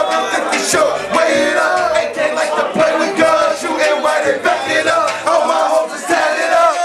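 Live rap performance: men rapping and shouting into handheld microphones over a hip-hop beat played through a club PA, with the crowd shouting along.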